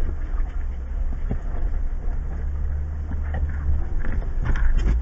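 Low, steady rumble of a 2015 Jeep Wrangler Unlimited Rubicon's 3.6-litre V6 as the Jeep crawls at walking pace over a rocky dirt trail, heard from inside the cabin. Occasional short knocks and rattles come through it, a few of them near the end.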